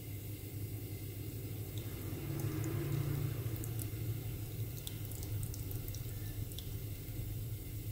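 A thin stream of herbal syrup trickling through a stainless mesh strainer into a glass jar, with scattered light drips and splashes. A steady low hum runs underneath.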